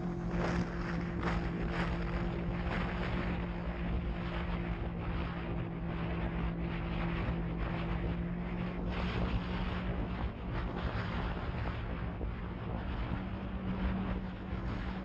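Polaris RZR 900 side-by-side's twin-cylinder engine running at a steady cruising pace over sand, with gusty wind buffeting the microphone.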